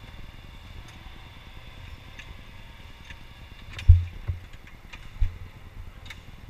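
Onboard an electric indoor go-kart: a faint steady high whine under low rumble, broken by low thumps as the kart and camera jolt. The loudest thump comes about four seconds in, a smaller one just after and another near five seconds, with a few light ticks.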